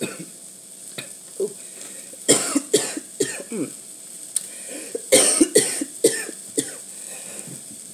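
A woman coughing several times, in two short bouts about two seconds in and about five seconds in.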